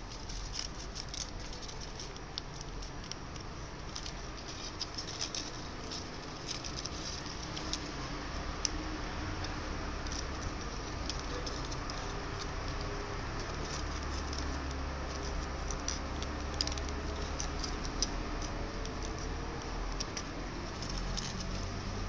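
Origami paper rustling and crinkling as it is folded and shaped by hand: irregular small crackles over a steady hiss.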